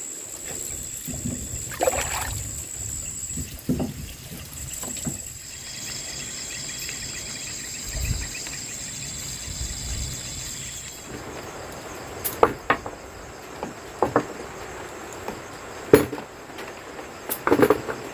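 Water poured from a plastic dipper and trickling over freshly dug sweet potatoes on a wooden plank floor, over a steady hiss of rain and a steady high-pitched tone. About eleven seconds in this gives way to a series of sharp knocks and clicks from a knife peeling sweet potatoes over a plastic basin.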